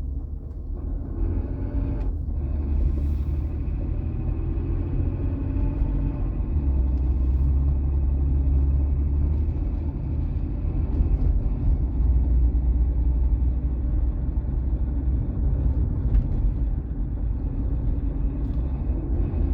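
Volvo XC60 T6's turbocharged six-cylinder engine running with a very loud, steady noise that sounds like a diesel. The owner takes it for a collapsed hydraulic lifter (tappet).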